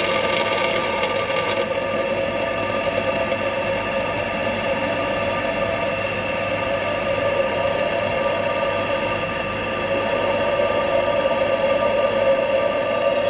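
Milling machine spindle running steadily, a twist drill cutting one of a ring of bolt holes in metal. The sound stays even, with a few held tones.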